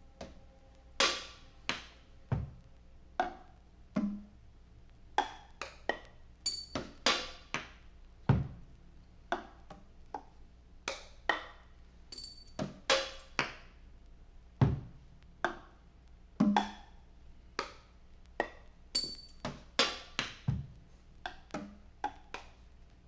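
Sparse, irregular drum-kit percussion: sharp woody clicks and knocks at an uneven pace, with a deeper drum thump about every six seconds, over a low steady hum.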